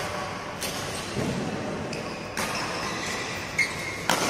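Badminton rally: several sharp racket hits on the shuttlecock, one to two seconds apart, with a short shoe squeak on the court floor near the end.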